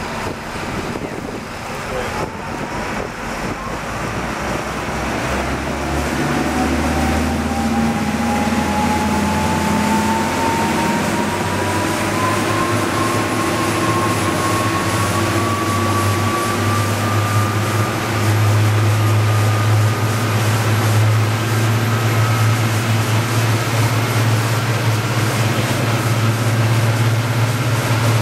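Twin Caterpillar 3116 diesel engines running a sportfishing boat under way, getting louder over the first few seconds as the boat comes up to speed. A whine climbs steadily in pitch until about twenty seconds in, then the engines hold a steady drone.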